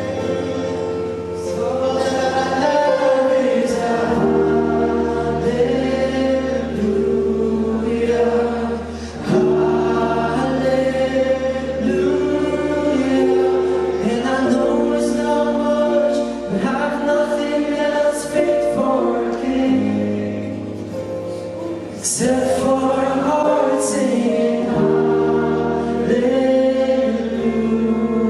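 Church worship band and choir singing a gospel song over sustained bass notes that change every few seconds.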